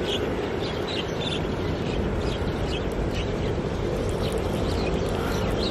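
Steady outdoor background noise with a low rumble, and faint short high chirps scattered through it.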